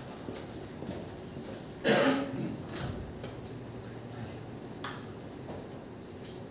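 A single loud cough about two seconds in, over the low steady background of a hall. A couple of faint sharp clicks follow.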